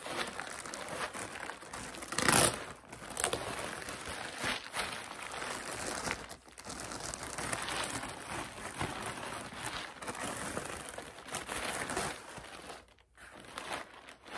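Clear plastic bag and tissue paper crinkling and rustling as a wrapped handbag is pulled out and unwrapped, with a sharp loud crackle about two seconds in and brief lulls midway and near the end.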